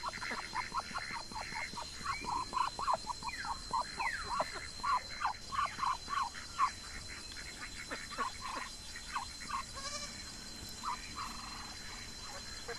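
Ducks calling with many short, quick quacks that overlap, thinning out over the last few seconds, over a steady high whine.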